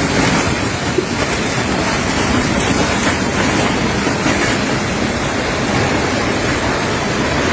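Strong storm wind blowing hard and buffeting the microphone in a steady, dense rush of noise.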